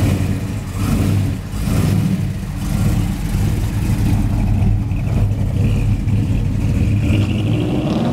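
A late-1960s Dodge Charger's engine running as the car pulls away and drives off, revving as it accelerates.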